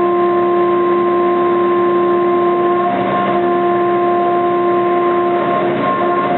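CNC milling machine cutting aluminium at 2 mm depth of cut and a 15,000 mm/min table feed: a loud, steady whine from the spindle and cutter, with a cutting hiss underneath. The pitch wavers slightly about three seconds in and near the end.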